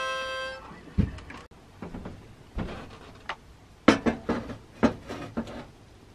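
A series of knocks and clicks as an enamel coffee pot is handled on top of a wood stove: two low thuds early, then a quick cluster of sharper clicks in the second half.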